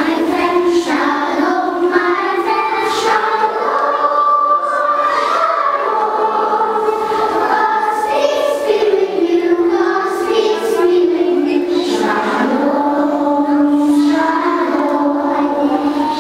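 A group of young children singing a simple song together in unison, with held notes moving step by step.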